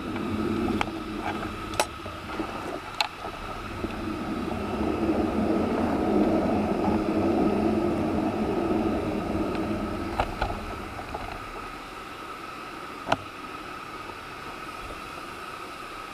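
1-inch-scale Little Engines Pacific live-steam locomotive standing in steam, with a rushing sound that swells for several seconds and then eases. Sharp clicks and knocks come now and then as the controls and fittings are handled, the loudest one about two-thirds of the way through.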